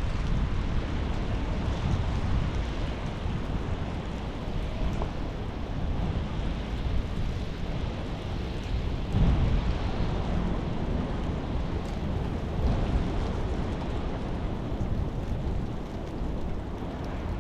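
Steady rain with a deep low rumble beneath it that swells briefly about nine seconds in.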